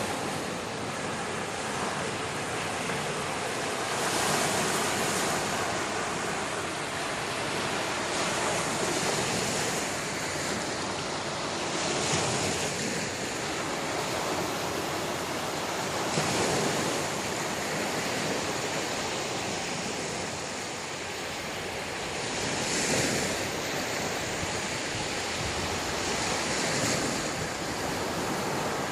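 Sea waves breaking on a beach: a steady wash of surf that swells with each breaking wave every few seconds.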